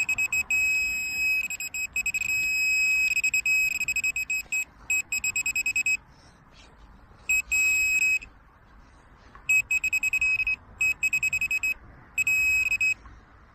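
Handheld metal-detecting pinpointer probe sounding a high electronic tone in rapid pulses as it is held over a buried target in a dug hole. The beeping stops twice, about 6 and 8 seconds in, as the probe moves off the target. The signal is from a coin, which turns out to be a pound coin.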